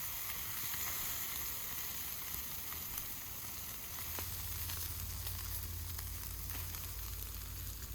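Pieces of minced meat sizzling on hot wood coals, with scattered small crackles. A low rumble comes in about four seconds in.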